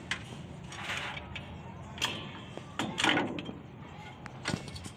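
Rag rubbing over a truck's steel brake backing plate in a few brisk wipes, with a couple of sharp metallic clicks in between, over a steady low hum.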